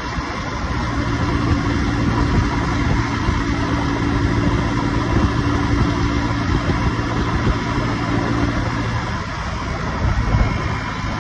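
Honda motorcycle engine running steadily at cruising speed under wind and road noise; the engine note changes about nine seconds in.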